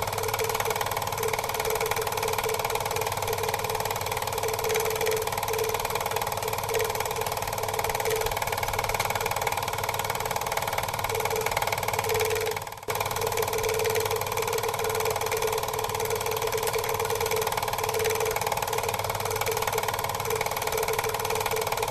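Quadcopter drone's electric motors and propellers running with a steady whine and rushing hiss, heard from the drone itself in flight. The sound dips sharply for a moment a little past halfway, then carries on as before.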